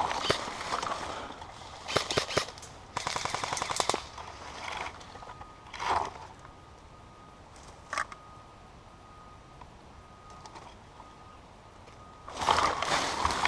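Airsoft guns firing: scattered single shots, then a rapid full-auto burst about three seconds in, with a few more isolated shots after it. Near the end a louder stretch of noisy movement sound begins.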